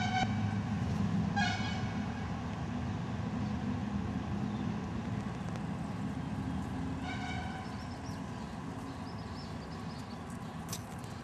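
A steady low motor-like rumble with three short, high, horn-like toots: two about a second and a half apart at the start, a third some six seconds later.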